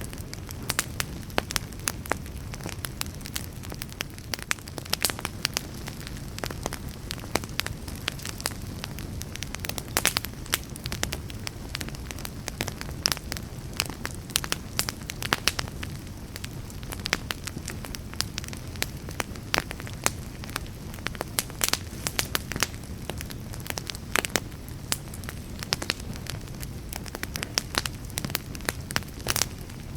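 Wood fire burning, crackling with many irregular sharp pops over a low, steady rumble of the flames.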